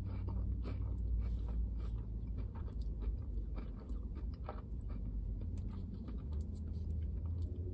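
Close-up chewing of a mouthful of Oreo Blizzard, with soft crunching of cookie pieces and scattered small clicks over a steady low hum.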